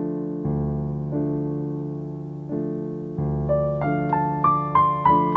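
Slow, gentle piano music: held chords that fade after each stroke, then a rising line of single higher notes in the second half.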